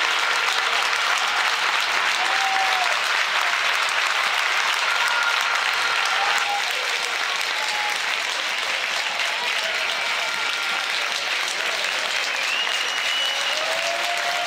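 Spectators in a football stand clapping, a steady, even applause.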